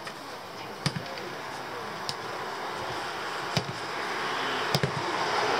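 A football being kicked: a few sharp thuds, about a second in and twice more near the end, over the noise of a passing vehicle that grows steadily louder.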